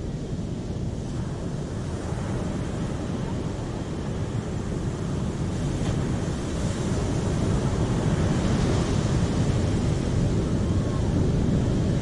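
Ocean surf breaking on a sandy beach: a continuous rushing wash with a deep rumble, swelling louder about halfway through.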